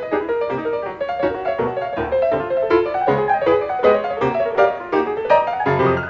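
Two acoustic grand pianos playing live jazz as a duo, in quick runs of struck notes and chords, heard from an FM broadcast recorded on cassette.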